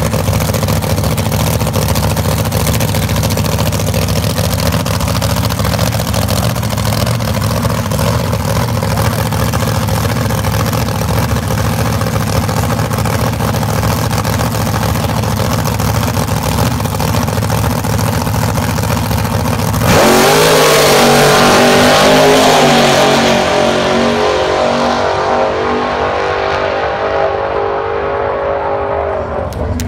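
Outlaw Ford Anglia drag car's engine running steadily at the start line. About two-thirds of the way in, it launches at full throttle: a sudden jump in loudness with the engine note climbing sharply, then fading as the car goes away down the strip.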